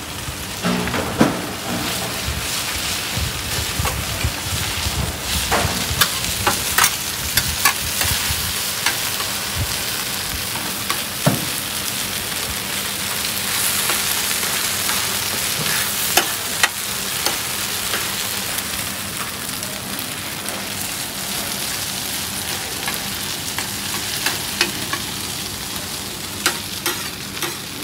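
Oyster omelette frying in oil in a large wok, sizzling steadily, with a metal ladle and scraper clacking and scraping against the pan many times as it is stirred and turned.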